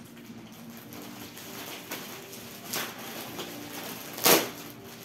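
Quiet background music under short rustling noises from chair parts being handled. The loudest rustle comes about four seconds in.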